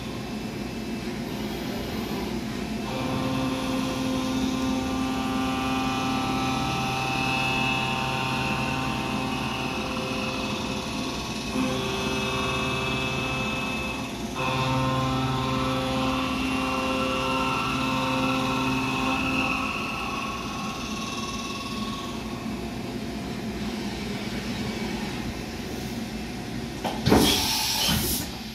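Doosan DNM 500 vertical machining center running under power, its table traversing, with a steady whine of several pitches that cuts in and out and dies away about three-quarters through. Near the end comes a brief, loud rush of hissing noise.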